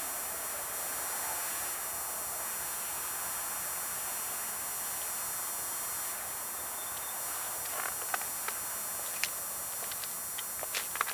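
Steady hiss of distant road traffic. From about eight seconds in, irregular footsteps on a snowy, gritty concrete walkway.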